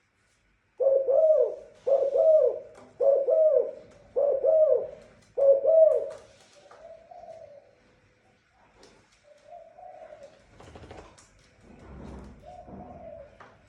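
Dove cooing: five loud coos about a second apart, then a few softer coos, with a couple of low thumps near the end.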